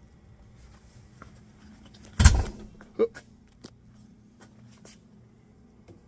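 A door being opened while someone steps inside: one loud knock about two seconds in, a shorter knock a second later, then scattered small clicks over a low steady hum.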